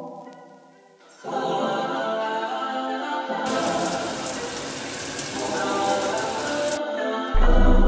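Shower head spraying water, a steady hiss from about three and a half seconds in that lasts about three seconds, over soft background music of sustained chords. Near the end, louder music with a heavy bass comes in.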